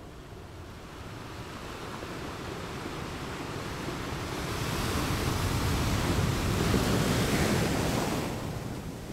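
Sea surf: a wave builds and swells over several seconds, then eases off near the end, with wind.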